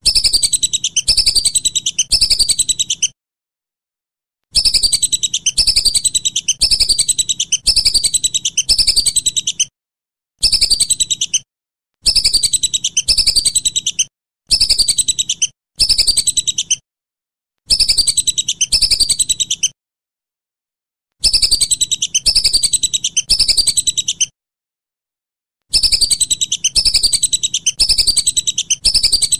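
Whistling duck (belibis) calling: runs of high, descending whistled notes, about one and a half a second, in bursts of a few seconds. Each burst stops abruptly, with short gaps of silence between them.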